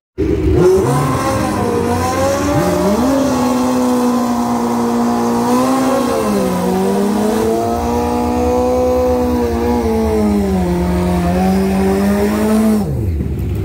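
Drag-racing motorcycle engine revving up and held at high revs for about ten seconds, with a few dips and recoveries. The revs fall off near the end.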